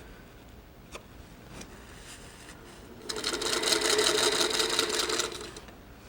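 Sewing machine stitching a short seam, joining a strip to a pieced quilt block: it starts about three seconds in, runs with a rapid needle patter for about two and a half seconds, then stops. Before it, faint fabric handling and a single small click.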